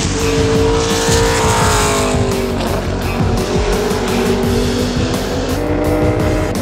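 Chevrolet NASCAR Camping World Truck Series race truck's V8 engine running hard on track; its pitch drops for about a second as the revs come down, then holds fairly steady. Background music with a beat plays underneath.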